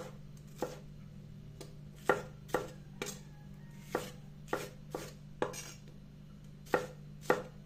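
Chef's knife chopping green bell pepper on a wooden cutting board: about a dozen sharp knife strikes against the board, unevenly spaced at roughly two a second. A faint steady low hum runs underneath.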